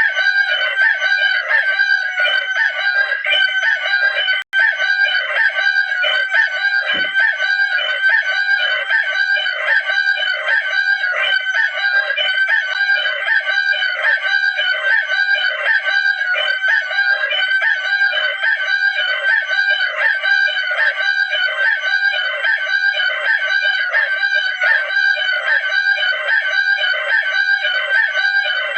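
Rooster sound effect: loud, continuous rooster calling with an even, rapid pulsing and no gaps. It cuts out briefly about four and a half seconds in.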